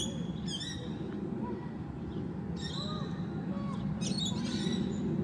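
Birds chirping in short groups of quick high calls, a few times, over a steady low background rumble.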